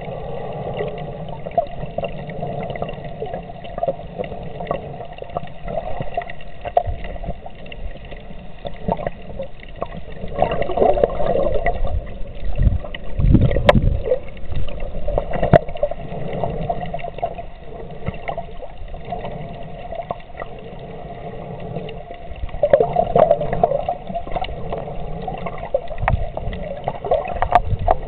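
Muffled underwater noise heard through a camera's waterproof housing: continuous water movement with a low rumble, swelling louder twice, with a few sharp clicks and low knocks against the housing.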